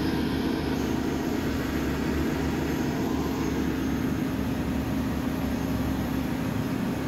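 Steady low drone of running machinery, the background noise of a ship's engine room, with a held low hum.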